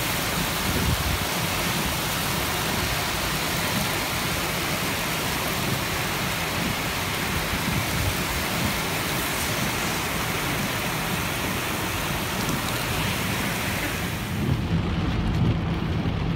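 Heavy monsoon rain and wind hissing steadily around a moving car. About a second and a half before the end, the high hiss cuts off and gives way to a muffled, uneven low rumble inside the car's cabin.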